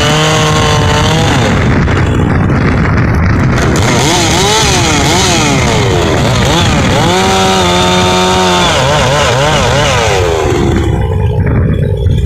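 Chainsaw with a 24-inch bar and 3/8 .050 chain running at full throttle while cutting through a solid log of red pine. The engine's pitch rises and falls again and again as the chain bites into the wood and the saw recovers.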